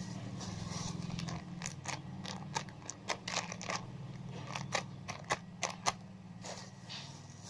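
Sharp clicks and crackles from objects being handled close to the microphone, coming in a rapid irregular run for several seconds before thinning out, over a steady low hum.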